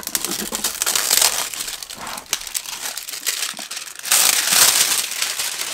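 Clear plastic wrapping crinkling as it is worked off a hard-plastic tool case, with a louder rustle of crinkling about four seconds in.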